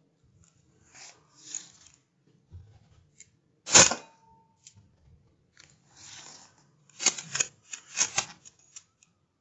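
An air rifle fires once about four seconds in, a single sharp crack, the loudest sound, with a brief ringing tone after it. A few seconds later comes a quick run of sharp clicks, with soft handling rustles before and between.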